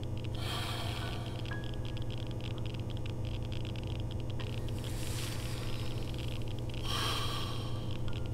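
A steady low hum, with a few soft breathy rushes of noise about half a second in, around five seconds and around seven seconds.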